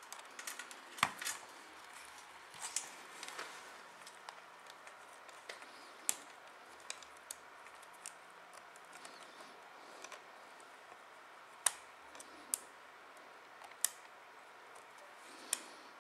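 Scattered light clicks and taps of hard plastic as a Canon Vixia HG20 camcorder is handled with a small screwdriver and its battery pack is fitted against the body. The sharpest clicks come about a second in, around six seconds, and several times near the end.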